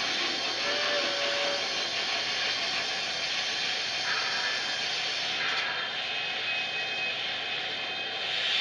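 Sn3 model steam locomotive's sound system giving a steady steam hiss as the engine moves slowly with empty log cars.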